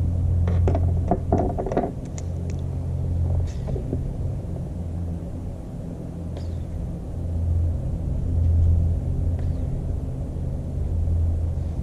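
Low engine drone that swells and fades over several seconds, with a few light clicks and knocks in the first two seconds.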